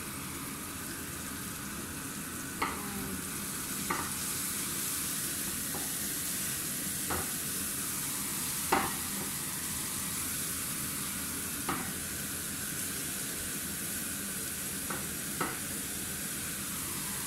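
Chopped onion, garlic, tomato and chili sizzling steadily in a nonstick frying pan while a wooden spatula stirs them, with about eight short clicks of the spatula against the pan along the way.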